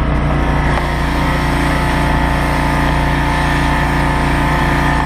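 Small engine of a high-pressure sewer jetter (pressure washer) running steadily. It is not too loud, with a good exhaust system.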